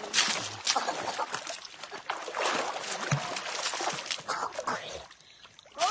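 Pool water splashing and churning as a child flips underwater in a small inflatable pool, her legs kicking up through the surface; the splashing dies down about five seconds in.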